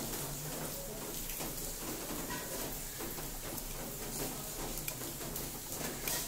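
LG washing machine running a wash cycle: a steady swishing of water and laundry in the turning drum, with a faint motor hum and small ticks.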